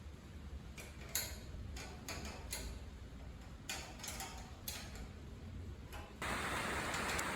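Scattered light ticks and taps. About six seconds in, a steady hiss of rain on the shed roof sets in abruptly.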